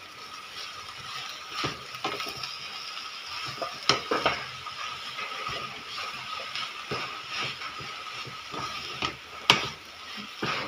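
A spatula stirring and scraping chopped leafy greens in a cooking pot, with sharp knocks of the spatula against the pot now and then, the loudest about nine and a half seconds in, over a faint steady hiss.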